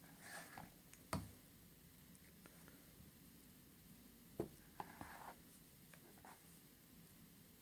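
Near silence: room tone with a few faint clicks and soft rustles of handling, the clearest about a second in and about four and a half seconds in.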